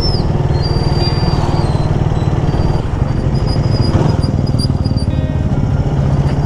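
Suzuki Raider 150's single-cylinder four-stroke engine running steadily under way, heard from the rider's seat with road and wind noise. A faint high-pitched tone comes and goes above it.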